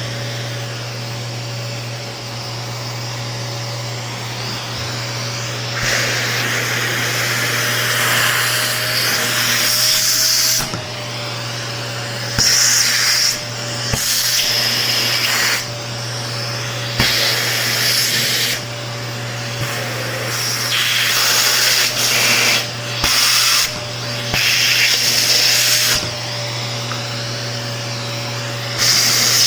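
Vacuum cleaner running with a steady motor hum. From about six seconds in, its hiss swells and then drops back again and again as the nozzle is worked over an electric fan.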